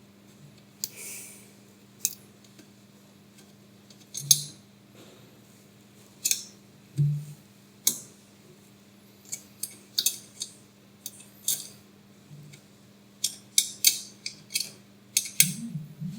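Irregular metallic clicks and clinks of small metal parts and hand tools being handled while fastening a Z-axis screw-rod support, growing busier near the end, over a steady low hum.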